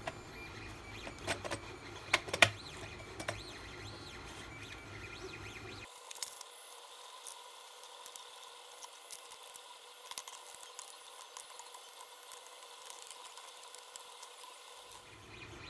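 Light clicks and knocks of screws and hard 3D-printed plastic parts being handled and fitted together, the sharpest about two seconds in. After about six seconds only a faint steady hum remains, with a few small ticks.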